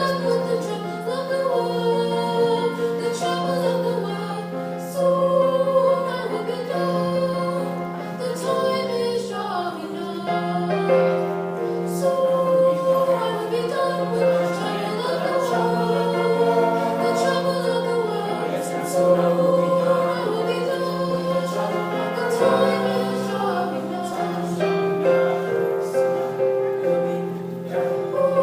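Choir singing a song over an accompaniment that holds long low notes, changing every few seconds.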